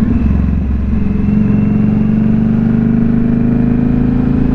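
Indian Scout Bobber's V-twin engine running at road speed, its pitch climbing slowly from about a second in, with low wind rumble on the microphone.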